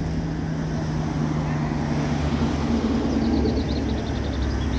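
Engines of WWII-era military vehicles running as a convoy passes, a steady low drone with one engine tone easing off a little past two seconds in. A rapid run of high ticks follows about three seconds in.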